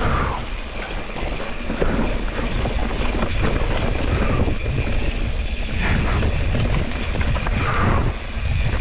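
Wind rushing over the microphone while a mountain bike descends a rough dirt trail, its tyres rumbling over the ground and the bike rattling with a steady run of small knocks.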